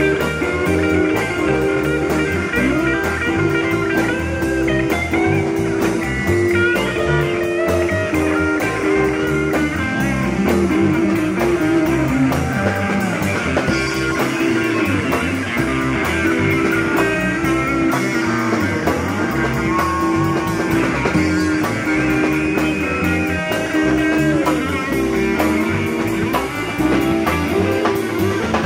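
Live blues-rock band with electric guitars played through amplifiers, an instrumental stretch without singing: lead guitar bending notes over a repeating low riff.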